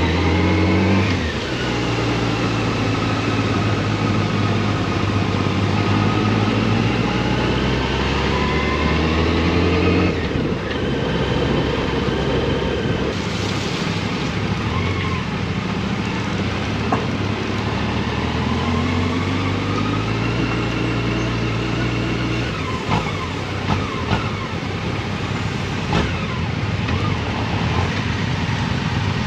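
Motorcycle engine under way, its pitch climbing slowly as it accelerates and dropping sharply at a gear change about ten seconds in and again about twenty-two seconds in, over steady wind and road rush. A few sharp clicks or knocks come near the end.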